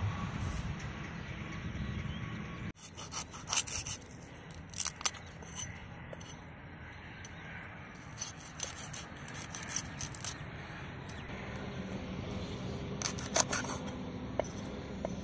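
A large knife scraping and chopping on trevally laid on a wooden chopping block, cutting off fins and cleaning the fish: scattered short scrapes and knocks.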